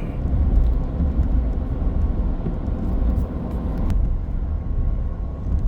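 Steady low engine and road rumble heard from inside a vehicle's cab while driving at highway speed.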